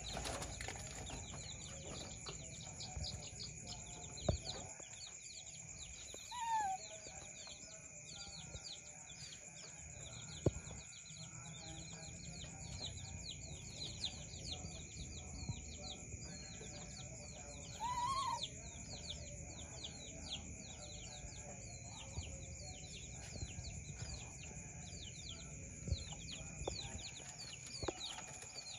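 Many small birds chirping fast and continuously over a steady high insect-like hum. Two short rising-and-falling calls stand out, about six seconds in and again around eighteen seconds, and a few sharp taps sound now and then.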